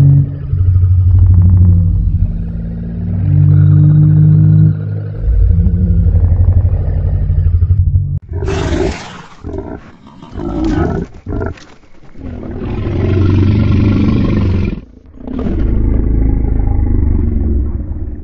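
Made-up creature roars built by layering animal recordings. For the first eight seconds a series of deep rumbling roars mixed from reconstructed T. rex sounds and a crocodile. From about eight seconds a brighter mix of elephant, horse, lion roar and pig grunts takes over, in several short bursts and then two long roars.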